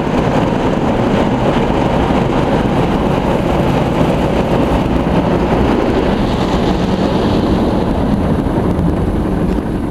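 Spinning foam brushes of a Belanger Freestyler friction car wash scrubbing along the car's sides and windows under water spray, heard from inside the cabin as a steady, loud rushing noise. It eases slightly near the end.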